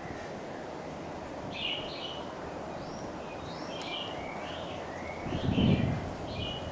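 Birds chirping: short calls repeated every half second or so over a steady background hiss. A brief low rumble comes about five seconds in and is the loudest sound.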